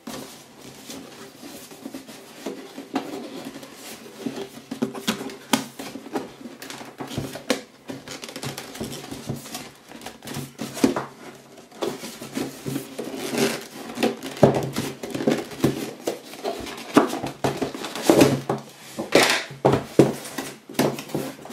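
Hands handling a cardboard headset box: irregular scrapes, rubs and light knocks as the outer sleeve is worked off the inner box. The handling is busier and louder in the second half.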